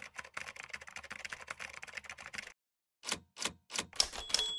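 Rapid clatter of keys typing, as a sound effect, for about two and a half seconds. After a short pause come several louder separate hits, with a high ding starting near the end.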